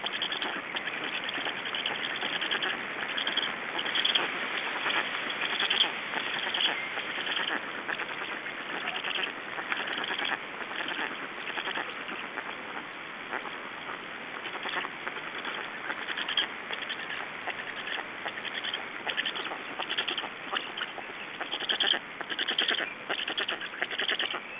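Black stork nestlings giving begging calls at the nest, a continuous chorus with irregular louder peaks throughout.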